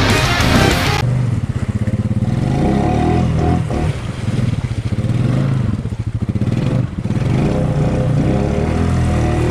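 Music cuts off about a second in, then a Honda Rubicon 500 ATV's single-cylinder engine revs, its pitch rising and falling again and again.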